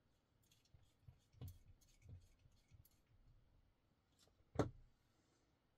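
Faint small metallic clicks and ticks of a bit driver working a tiny screw in a folding knife's metal handle, with a couple of soft knocks, then one louder knock about four and a half seconds in as the driver is set down on the mat.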